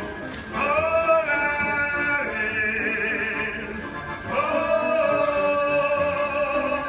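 A man singing a serenade, holding two long notes with a waver in the pitch. The second note begins a little over four seconds in.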